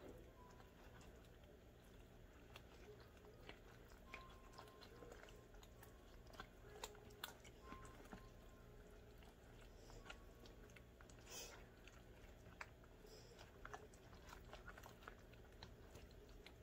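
Near silence: faint, scattered clicks and taps as a knife cuts hot dog pieces in a glass baking dish of baked beans, over a low room hum.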